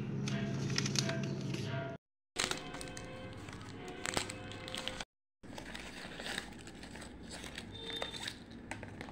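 A chocolate bar's wrapper being torn open and crinkled by hand, many sharp crackles in short cut-together bits, with a steady low hum in the first two seconds.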